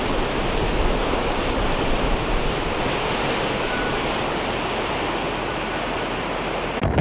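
Steady rushing noise, even across low and high pitches, cutting out abruptly near the end.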